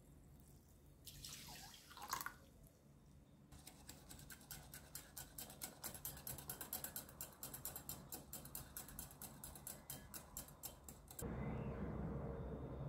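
Mineral water poured briefly into a glass bowl over an egg, then a coil spring whisk beating the mixture against the glass in quick, even strokes, about five a second. Near the end the whisking stops and a louder low hum comes in.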